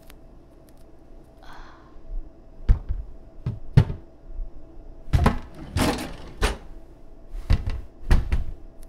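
Kitchen cabinet doors and drawers banging shut: a run of about seven heavy bangs spread over some six seconds.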